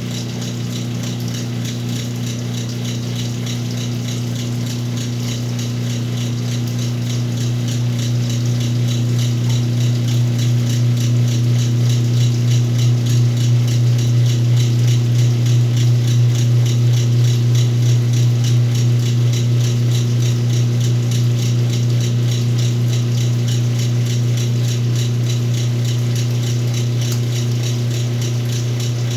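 Whirlpool washing machine running with its motor humming steadily while the drum turns, with a regular pulsing that grows louder over the first dozen seconds and then holds steady.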